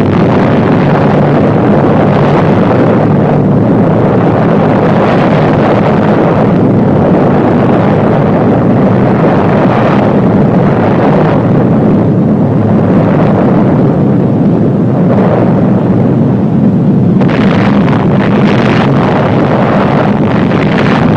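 Loud, steady rumble of an explosion on the film soundtrack, a continuous low roar with no breaks, laid over footage of the first atomic bomb's fireball and cloud. The top end thins out briefly in the second half.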